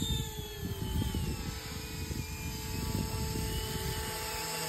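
Flish RC EC135 450-size electric model helicopter flying: the brushless motor and rotors give a steady whine that falls slightly in pitch over the first second or so, over an uneven low rumble.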